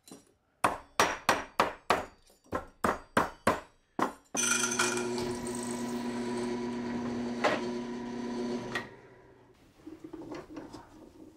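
A steel fork hammered on a steel bench block, about a dozen quick sharp blows, about three a second. Then a drill press runs steadily, boring a hole through the fork, and stops about two seconds before the end.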